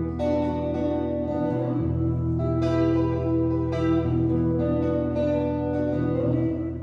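Solo guitar playing an instrumental passage: single plucked notes, about one a second, ringing on over a steady low note.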